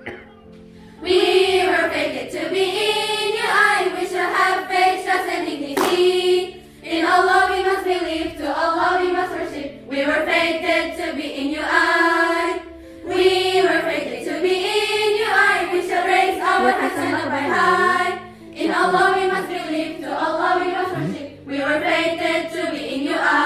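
A girls' choir singing together in phrases a few seconds long, with short breaks between them; the singing starts about a second in.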